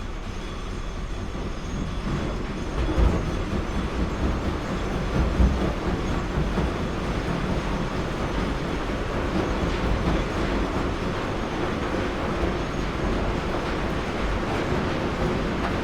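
Heavy machinery running: a steady, dense mechanical noise, strongest in the low end. It grows a little louder over the first couple of seconds, with two brief louder thumps about three and five and a half seconds in.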